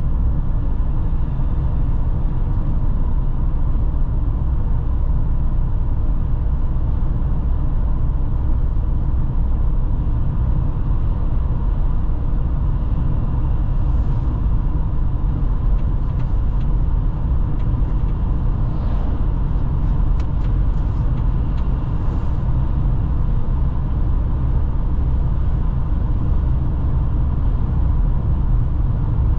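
Steady low rumble of a car driving at road speed: engine and tyre noise on asphalt, with a few faint clicks midway.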